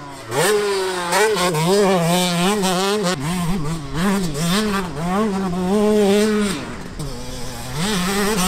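Yamaha YZ125 two-stroke motocross engine under hard riding, its pitch repeatedly climbing and dropping as it revs out and shifts. It eases off briefly about seven seconds in, then pulls again.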